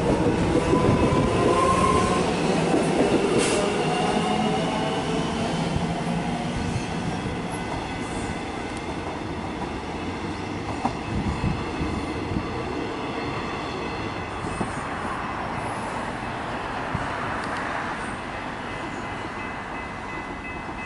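Metro Trains Melbourne X'Trapolis electric train pulling away, its motors whining upward in pitch at first, then wheels and running noise fading steadily as it draws off. Near the end, steady electronic level-crossing bells ring.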